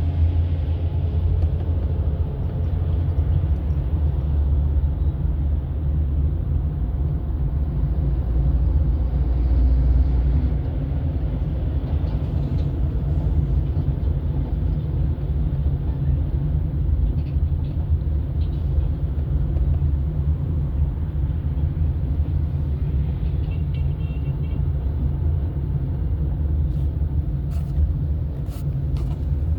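Car driving along a road: a steady low rumble of engine and tyre noise, with a few faint clicks near the end.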